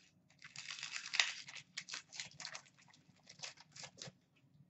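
Trading cards being handled and set down on stacks: a run of rustling and crinkling with quick light slaps, dying away near the end.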